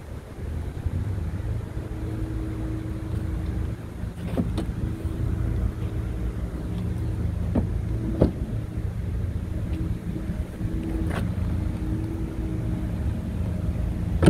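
Scania R tractor unit's diesel engine idling steadily, a low even hum, with a few short sharp clicks scattered through it.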